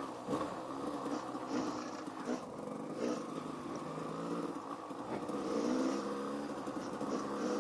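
Motorcycle engine running at low revs off-road, its pitch rising and falling as the throttle is worked, with a few short knocks.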